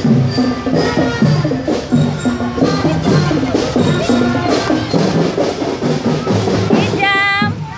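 Rhythmic percussion music with a steady beat of drum and wood-block-like strikes under pitched notes, with a short held note near the end.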